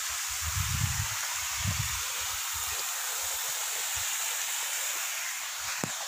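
Steady hiss of falling water from a waterfall, with a few low thumps near the start.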